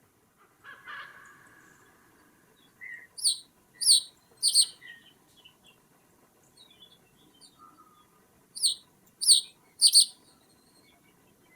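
Bird calls: a series of three loud, sharp, high notes, each sliding downward, about three seconds in, and a second series of three to four near the end. A short rasping call comes about a second in, and faint chirps fall between the series.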